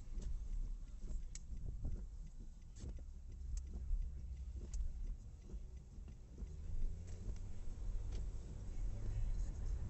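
A car cabin while driving slowly on a wet road: a steady low engine and road rumble, with scattered light ticks and clicks at irregular moments.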